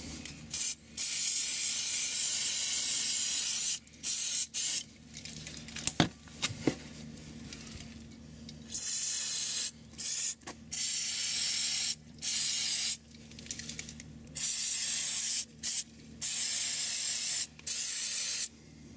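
Aerosol can of Muc-Off degreaser spraying onto a motorcycle's rear chain sprocket in about a dozen hissing bursts that start and stop sharply, from a fraction of a second to about three seconds each. There is a pause of about four seconds, with a few small clicks, a quarter of the way in.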